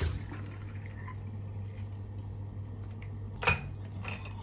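Small handling sounds and faint water drips at a bathroom sink over a steady low hum, with one sharp knock about three and a half seconds in; toothbrushing starts near the end.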